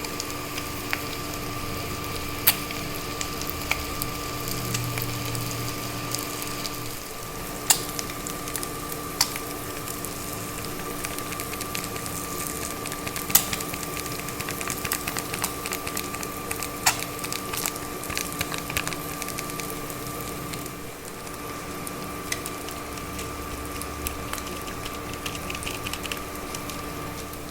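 Boiled eggs frying in hot oil in a kadhai: a steady sizzle full of small crackling spits, with a few louder pops now and then. A steady hum runs underneath.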